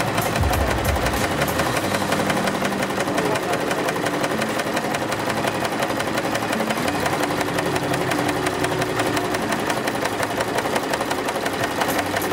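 Dekar portable sewing machine running at speed, stitching zigzag through a free-motion embroidery (darning) foot, with a rapid even needle rhythm over the motor hum. The pitch of the hum shifts slightly a few times as the speed changes.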